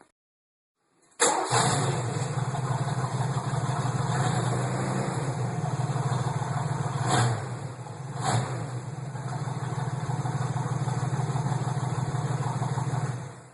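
1982 Mercury Capri RS's 5.0 V8, its exhaust pipe loosened behind the catalytic converters so it runs essentially unmuffled, starting about a second in and then idling steadily, with two brief surges around the middle. The sound cuts off near the end.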